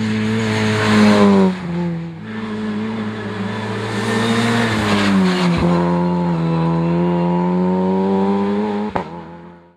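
Opel Adam rally car's engine at full throttle, its pitch climbing and then dropping sharply several times at gear changes as the car passes close by and pulls away. There is a sharp crack about nine seconds in.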